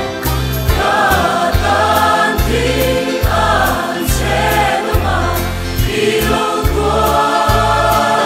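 Large mixed church choir singing a hymn in Mizo in full harmony, with instrumental accompaniment carrying low bass notes that change about once a second.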